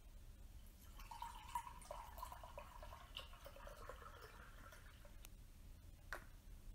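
Milk poured from a small can into a glass cup: a faint, thin trickle from about one to five seconds in, its pitch rising slightly as the cup fills. A short click follows about six seconds in.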